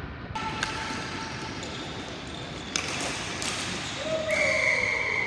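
Ball hockey game sounds in a rink: players' voices and sharp clacks of sticks and ball on the plastic sport-court floor. About four seconds in, a sustained high steady tone starts.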